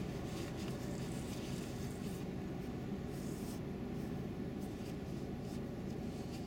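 Steady low rumble of a car cabin with the car stopped and idling, and traffic crossing in front of it.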